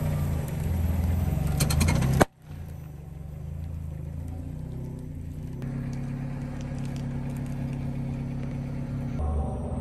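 Car engine running at low speed as the car creeps forward over liquid-filled balloons, with a few sharp snaps about a second and a half in. It cuts off abruptly after about two seconds and goes on as a quieter, steady engine hum.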